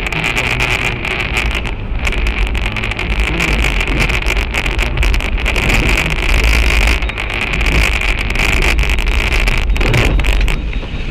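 Car cabin noise picked up by a dashcam while driving on a slushy winter road: a steady, loud rumble of engine and tyres with a hiss and many short clicks and rattles throughout.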